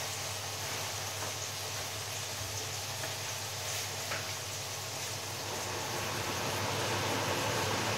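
Beko front-loading washing machine on its spin cycle: the drum spinning with a steady hum and whirr, growing louder about six seconds in.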